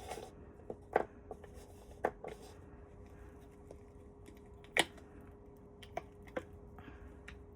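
Scattered light clicks and taps of small cured resin castings being handled and worked out of their silicone molds, about eight in all, with the sharpest about five seconds in, over a faint steady hum.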